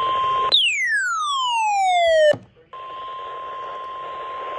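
The NOAA Weather Radio warning alarm tone, a steady single tone just above 1 kHz, over radio receiver hiss. About half a second in, a loud electronic tone sweeps steadily down in pitch for nearly two seconds and cuts off sharply; after a brief gap the steady alarm tone and hiss return.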